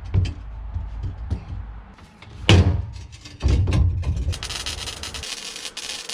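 Irregular knocks and clanks of steel frame parts being handled and fitted, with one loud ringing clank about two and a half seconds in and heavy thumps a second later.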